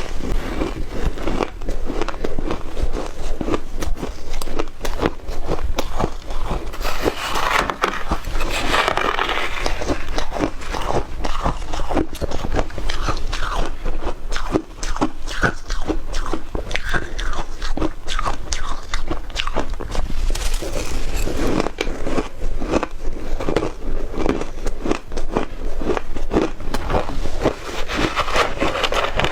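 Shaved ice being bitten and chewed: a dense, continuous run of crisp crunches and crackles.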